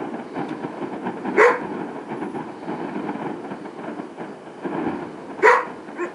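A dog barking twice, about four seconds apart, over a steady rough background noise.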